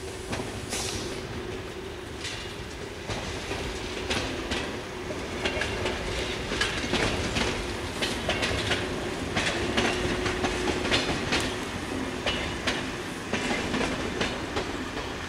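TER regional train passing through the station, its wheels clacking over rail joints above a steady running hum. Loudest in the middle, easing off near the end as the train moves away.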